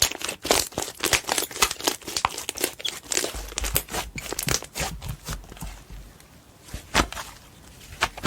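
Slime being squished and poked by hand, making a quick run of sticky clicks and pops. They thin out briefly past the middle, with one sharp pop near the end.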